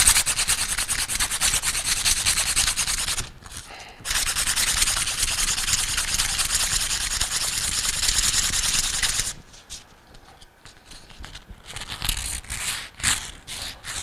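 Emery cloth rubbing rapidly back and forth around a Bell & Gossett 1510 pump's steel shaft, buffing off old Loctite so the new shaft sleeve will bond. Two long bouts of fast scratchy strokes with a brief pause about three seconds in, then lighter, intermittent strokes from about ten seconds.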